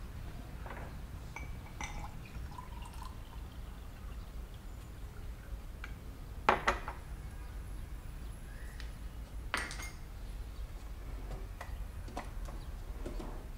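Kitchenware being handled: scattered small clicks and clinks of a mug and glassware on a counter, with two sharper knocks about three seconds apart midway, over a low steady hum.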